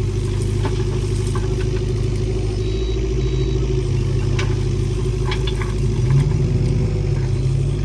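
Engine of the machinery digging out the ditch, running steadily with a few light clanks, its note shifting a little now and then as the load changes.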